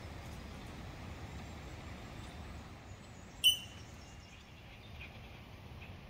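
A bird gives one sharp, loud, high chirp about three and a half seconds in, with a few faint chirps now and then, over a steady low outdoor background noise.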